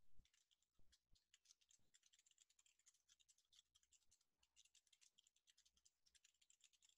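Faint computer keyboard typing: many light, quick key clicks.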